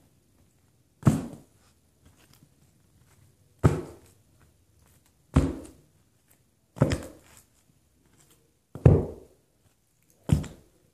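Six dull thumps at irregular intervals of about one and a half to two seconds, each dying away quickly: a small homemade fingerboard and the fingers working it striking a carpeted floor close to the microphone as tricks are tried.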